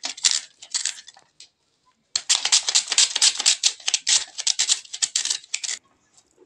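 Onion being sliced on a handheld plastic mandoline slicer: quick, crisp back-and-forth slicing strokes, several a second. A short run, a brief pause, then a longer run that stops a little before the end.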